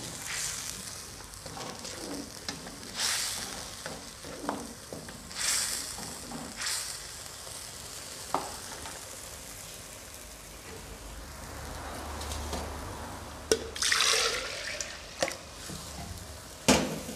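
Ground chili spice paste frying in oil in a wok, with a steady soft sizzle. A spatula scrapes and stirs against the pan a few times in the first seven seconds and again near the end.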